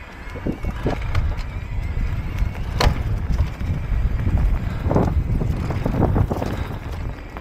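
Wind buffeting the microphone over the rumble of mountain-bike tyres on a dirt trail, with scattered knocks and rattles from the bike jolting over bumps. There is one sharp click about three seconds in.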